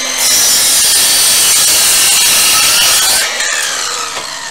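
Battery-powered mitre saw cutting through a block of western red cedar: the spinning blade bites in just after the start and cuts loudly for about three seconds. It then comes out of the wood and the motor winds down with a falling whine.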